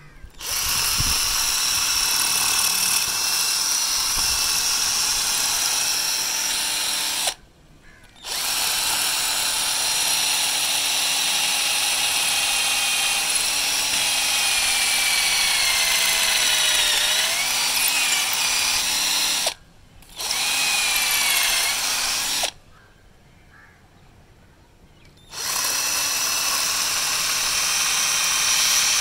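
12 V cordless drill running its bit into red brick, with the motor under load on a freshly fitted lithium-ion battery pack. The motor note sags and wavers in the middle as the bit bites. The drill stops briefly about seven seconds in and again about twenty seconds in, then falls silent for about three seconds before starting up again.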